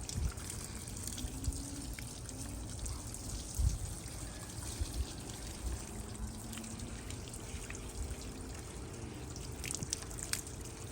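Water running and trickling over teak boards as teak brightener is rinsed off, with a few soft knocks.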